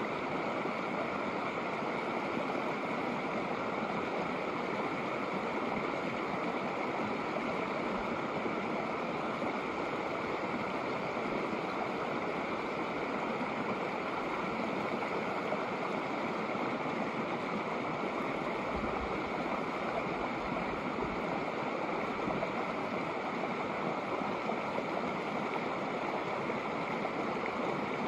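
A shallow snowmelt creek flowing steadily over rocks, a continuous even rush of water.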